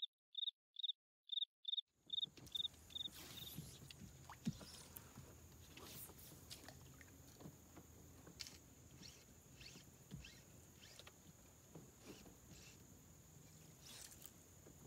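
Faint insect sounds. A run of short, evenly spaced high cricket-like chirps fades away over the first two seconds, then a thin steady high insect drone continues with scattered soft clicks and ticks.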